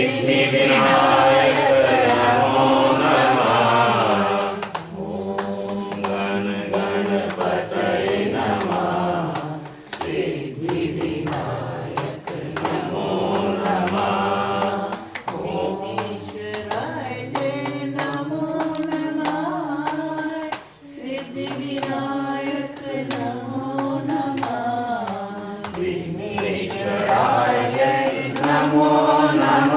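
A group of voices chanting a Hindu devotional mantra together, with long held notes; louder for the first few seconds and again near the end.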